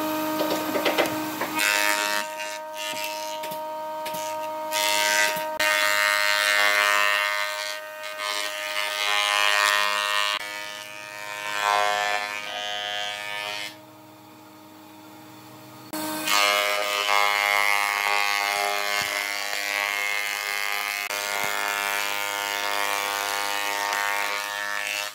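An industrial thickness planer runs with a steady machine whine while its cutterhead planes a wide panel of reclaimed pallet wood, a loud rough cutting noise. The cutting drops away for about two seconds a little past the middle, leaving the machine running more quietly, then starts again.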